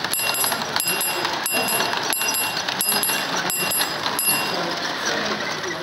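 Model railway grade-crossing pulse bell ringing in even single strikes, about one and a half a second, set off by the passing G gauge train's magnet tripping a reed switch. It falls silent about four seconds in, over steady background noise.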